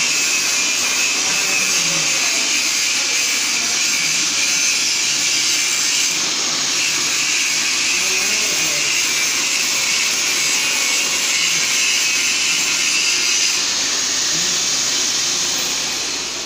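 Handheld electric angle grinder running under load, its disc grinding a steel workpiece held in a vise, a loud, steady, high-pitched grinding noise. Near the end it is lifted off and winds down.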